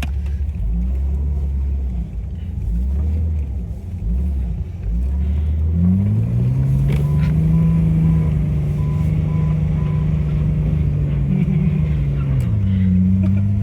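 Jeep engine revving with its tires spinning on snow during donuts: the revs climb about six seconds in, hold high, then drop near the end. A faint repeating beep chimes during the high revs.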